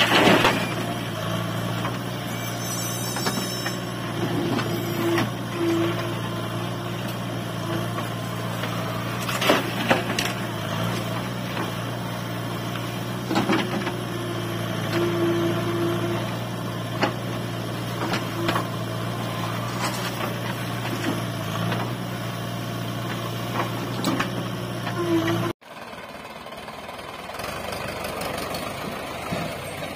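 JCB backhoe loader's diesel engine running steadily under load while the backhoe digs and dumps soil and rock, with scattered sharp knocks. About 25 seconds in the sound cuts off abruptly and gives way to a quieter tractor engine running.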